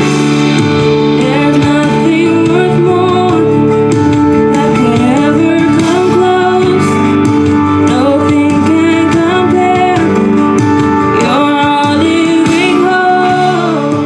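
A woman singing a slow gospel song in long sliding vocal runs with vibrato, over electric keyboard accompaniment.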